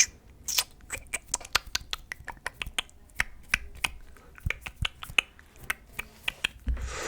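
Mouth sounds close to the microphone: a quick, irregular run of sharp clicks and pops, several a second.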